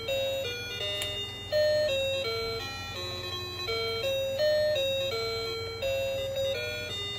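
Battery-powered toy water park play set playing its built-in electronic jingle: a simple melody of plain single notes, over a low steady hum.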